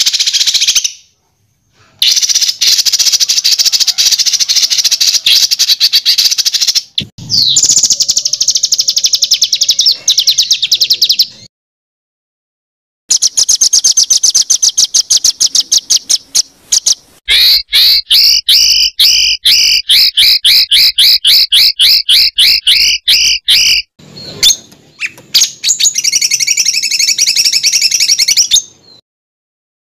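Songbird song in dense, rapid strings of sharp, high repeated notes, the tight 'tembakan' style used as bird-training material. It comes as separate spliced recordings, broken by a few abrupt silences. In the middle is a long, fast, even run of the same note.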